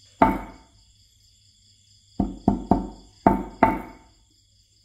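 A hammer striking the tip of a copper wire laid on a wooden block: one sharp knock, then a quick run of five more about two seconds later, each with a short ringing tail.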